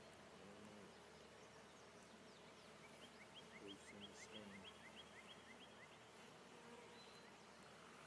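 Faint buzzing of honey bees around an opened hive. A quick run of short, high rising chirps, about four a second, sounds from about three seconds in for a couple of seconds.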